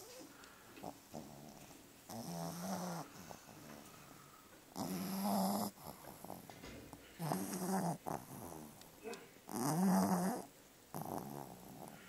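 Black pug–Boston terrier cross snoring loudly in its sleep, one snore every two to three seconds, each a short low buzzing rasp.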